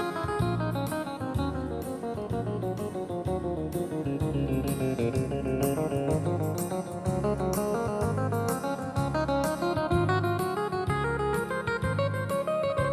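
Background music: a quick melody of short notes over a steady beat.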